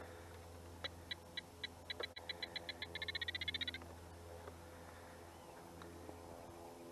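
A bird's song: a series of short, clear whistled notes that speed up from a few a second into a fast trill lasting about three seconds, rising slightly at the end. A faint steady hum lies underneath.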